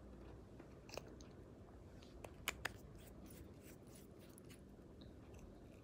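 Faint clicks and taps of a plastic lip matte tube and its cap being handled and opened, over low room hiss, with two sharper clicks close together about two and a half seconds in.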